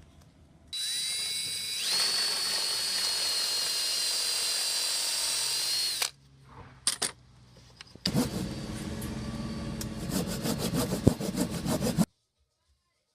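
Power drill running: it whines up to speed and runs steadily for about five seconds, clicks twice, then runs again for about four seconds with a rapid rattling tick before stopping abruptly.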